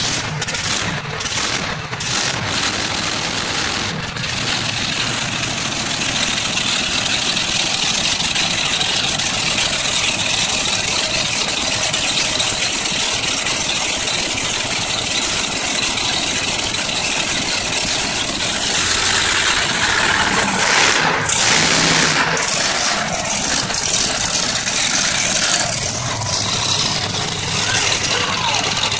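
Ramunition monster truck's engine running loudly and steadily as the truck moves slowly, with a rattle, swelling louder for a few seconds about two-thirds of the way through.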